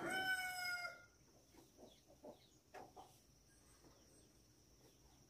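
A rooster crowing. The held, falling end of the crow dies away about a second in, followed by a few faint short calls.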